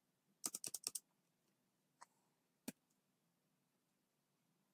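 Computer keyboard keys being typed: a quick run of about five keystrokes just after half a second, then two single key presses a little later, with near silence between.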